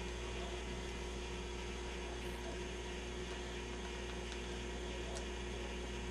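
Steady low electrical mains hum under a faint even hiss.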